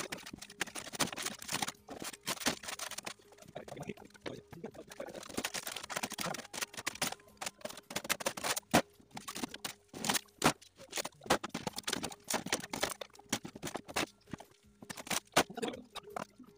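Irregular knocks, clatters and scraping from hand demolition work on an old kitchen, with a few sharper knocks standing out.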